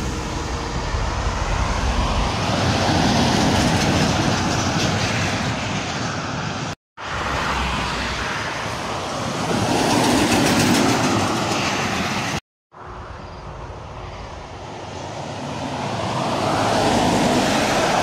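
Heavy semi-trailer trucks passing close by on a highway one after another, each a rumble of engine and tyres that swells as it comes by and fades away. The sound cuts out briefly twice between clips.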